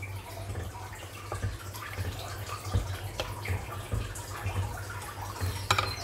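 Pot of coconut-milk gravy bubbling as it simmers, with small irregular ticks and one sharper click near the end.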